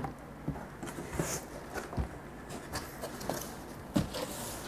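Cardboard box flaps being opened and the packing inside handled: scattered rustles, scrapes and light knocks, with a louder thump about four seconds in.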